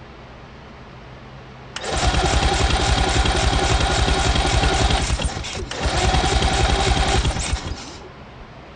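Electric starter cranking a Suzuki GT750 two-stroke triple engine with a spark plug out for a spark check: a fast, even churning rhythm that starts about two seconds in, breaks off briefly midway, and stops near the end.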